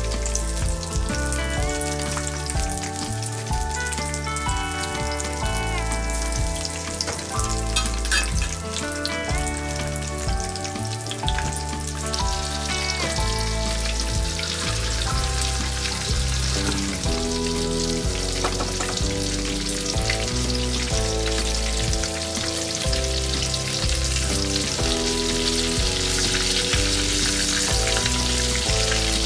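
Flour-coated karaage chicken pieces deep-frying in a pan of oil, a steady crackling sizzle that grows louder about twelve seconds in. Background music with a bass line plays under it.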